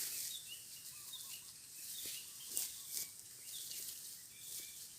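Small birds chirping repeatedly in short high calls, with a few brief rustling swishes about halfway through.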